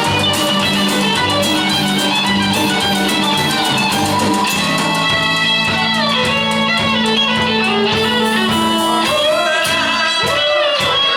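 Instrumental passage of a rock song: a lead line with sliding notes over guitar and a steady drum beat.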